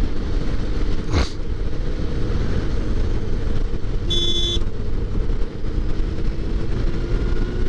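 Sport motorcycle riding along with heavy wind rush on the microphone, its engine drone rising slowly near the end. A brief high ringing tone sounds about four seconds in.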